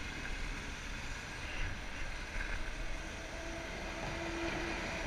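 Kawasaki ZX-6R sport bike's inline-four engine running as the bike rides along, with wind noise on a helmet-mounted camera.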